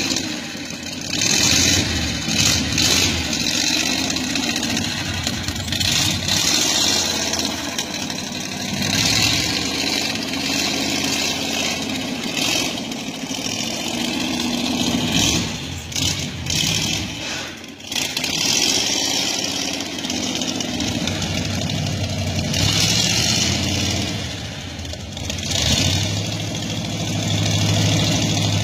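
Rat rod truck engine running and revved again and again, swelling and easing every few seconds.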